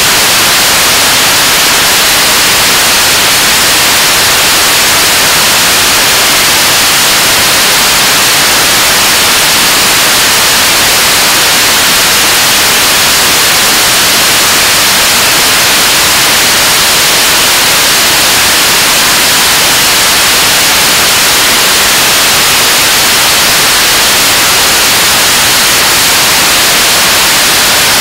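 KSLV-II (Nuri) 7-tonne-class kerosene/liquid-oxygen rocket engine in a steady-state hot-fire burn on a test stand. Its exhaust makes a constant loud rushing hiss, strongest in the high range, with no change in level.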